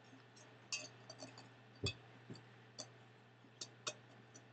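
Faint, irregular clicks, about nine in a few seconds, over a low steady hum.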